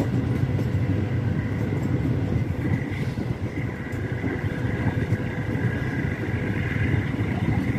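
Passenger train running slowly, a steady low rumble of wheels on the track with a faint high whine over it.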